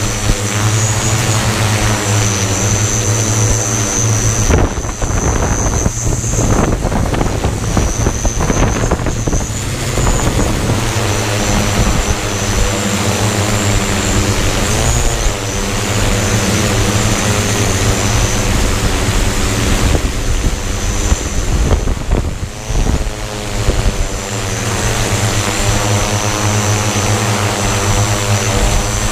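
Hexacopter's six electric motors and propellers running in flight: a steady loud hum with a high whine above it. The pitch wavers now and then as the motors speed up and slow down against strong, gusty wind, which adds rough noise.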